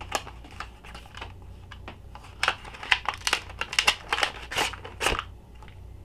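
Plastic clamshell tray and cardboard box of a cable package being handled and pulled apart: a run of crinkling, clicking rustles with a sharper snap about five seconds in.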